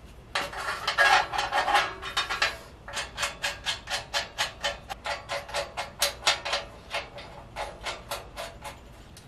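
Socket ratchet wrench clicking as a nut and bolt are tightened on a metal sewing-machine stand. There is a quick run of rapid clicks first, then a steady series of separate clicks, several a second, stroke by stroke.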